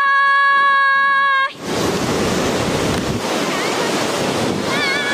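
A steady held tone that cuts off about a second and a half in, then the even rushing of a mountain river in the gorge below, with wind on the microphone.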